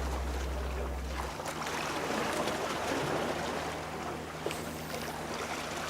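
Sea water lapping and washing against a harbour wall, with wind noise and a faint low steady hum. Background music cuts out about a second in.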